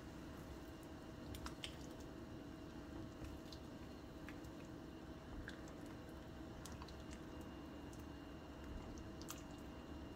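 Silicone spatula stirring a pot of thick lamb and vegetable stew: faint wet squishing of the broth, with scattered small clicks, over a faint steady hum.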